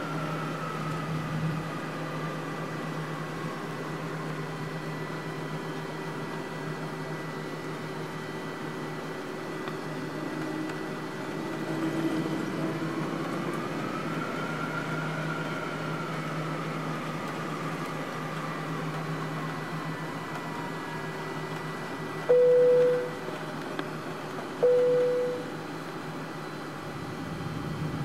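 Cabin noise of a Swissair MD-11 jetliner taxiing: a steady low engine drone with a jet whine that swells and fades twice. Near the end two short, loud single-pitch tones sound about two seconds apart.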